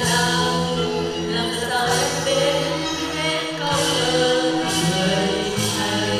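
Backing music with a steady bass line and occasional cymbal crashes, with voices singing over it.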